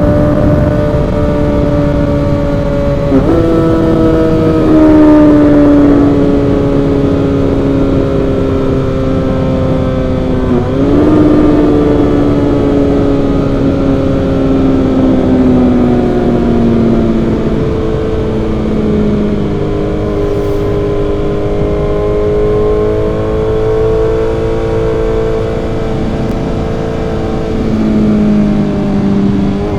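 Suzuki GSX-R1000 inline-four running through an M4 aftermarket exhaust while riding. The engine note sinks slowly as the bike eases off, with sharp jumps in revs about 3 and 11 seconds in, then climbs gradually again in the second half, over a steady rush of wind.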